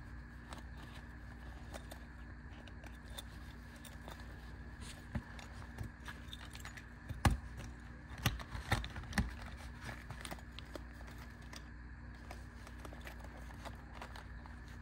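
Small metal tools and their case being handled: scattered light clicks and rattles, with a cluster of sharper clicks and knocks about seven to nine seconds in, over a steady background hum.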